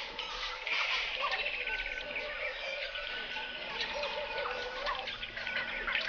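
Daytime African bushveld ambience: many birds calling at once, with repeated low warbling calls under higher chirps and trills.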